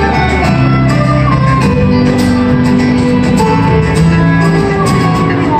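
Instrumental music: plucked strings under a melody of held notes that changes every second or so.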